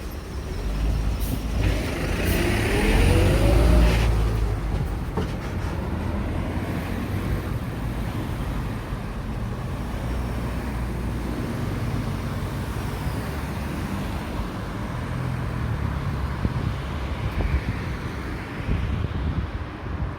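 Road traffic passing at a junction. A couple of seconds in, a vehicle accelerates past with its engine note rising and is the loudest moment; steady traffic noise follows.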